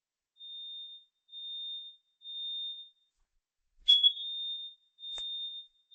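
Smoke detector sounding its test alarm: a high-pitched beep repeated three times, a pause, then the beeping starts again. A sharp click comes about four seconds in, the loudest thing here, and a fainter click a second later.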